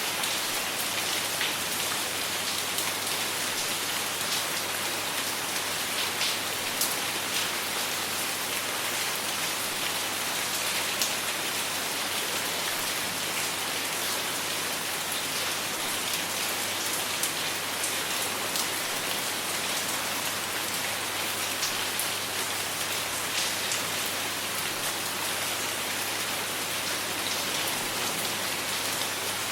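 Steady rainfall: a constant hiss of rain on a surface, with many individual drops ticking and splatting sharply throughout.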